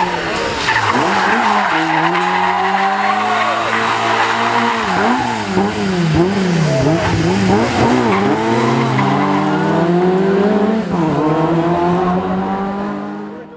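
Ford Escort Mk2 rally car's engine revving hard at full throttle. Its pitch climbs through the gears, with quick drops as the driver lifts off and shifts, several in a row around the middle. The sound fades out near the end.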